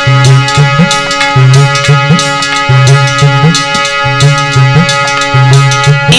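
Instrumental interlude of Indian folk music: a harmonium plays a melody over held notes while a hand drum keeps a steady rhythm.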